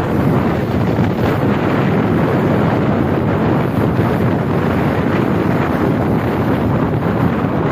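Steady wind buffeting the microphone of a motorcycle moving at road speed, a loud unbroken rush with the bike's running noise blended underneath.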